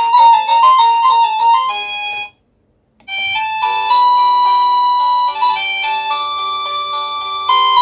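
Cacazi HYA10 wireless doorbell receiver playing its electronic chime tunes: a quick melody ends about two seconds in, then after a short silence the next ringtone starts, a slower tune of held notes.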